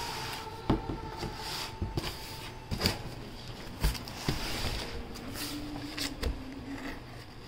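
Hands handling a cardboard box, with several sharp knocks and taps spread irregularly over a few seconds.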